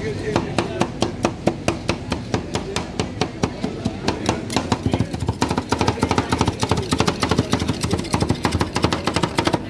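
Two metal spatulas rapidly chopping ice cream mix on a frozen steel cold plate for rolled ice cream: a fast run of sharp metal clicks, about five a second, getting quicker past the middle.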